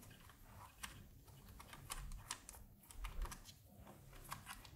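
Faint, irregular small clicks and ticks of fingers turning small nuts off the bolts of a circuit-board and acrylic panel assembly.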